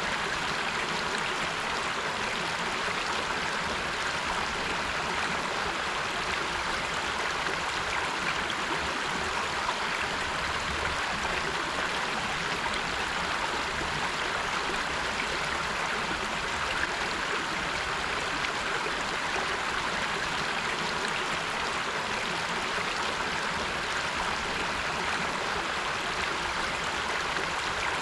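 River water flowing steadily over rocks, a constant rushing with a light gurgle.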